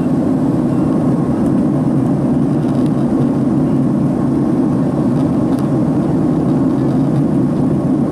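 Steady, even cabin drone of a Boeing 767-300's jet engines and the airflow over the airframe in flight, heard from inside the cabin over the wing.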